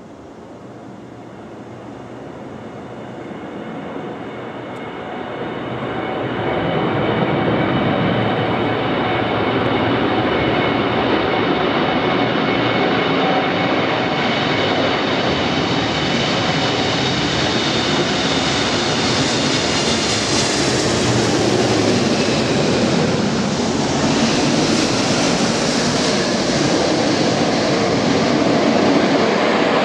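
Strong typhoon wind that builds over the first several seconds to a loud, steady rush with a thin high whistle through the middle.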